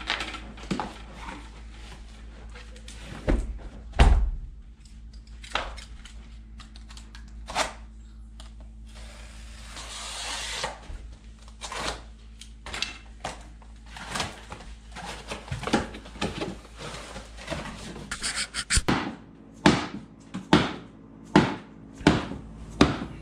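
Scattered wooden knocks and thuds of laminate flooring pieces being handled and worked on. There is one heavy thump about four seconds in, a stretch of scraping about ten seconds in, and a quick run of sharp knocks near the end.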